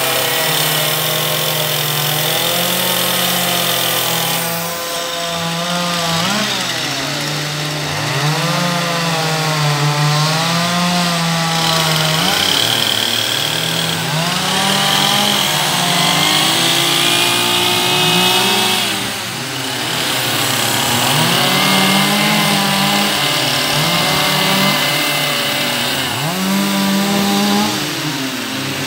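Chainsaw cutting into a standing log as it is carved into a sculpture. The engine revs up and falls back again and again as the carver works the blade in and out of the wood.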